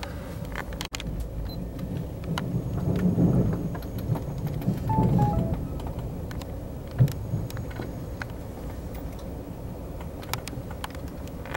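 Passenger train carriage running along the track, heard from inside the coach: a steady low rumble with scattered clicks and knocks, swelling louder twice a few seconds in, and one sharp thump about seven seconds in.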